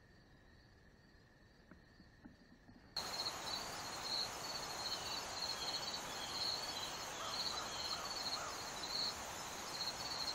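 Insects chirping steadily in a high, regular pulsing rhythm, about two pulses a second, over a soft hiss. The sound jumps suddenly louder about three seconds in, with a few faint falling chirps mixed in.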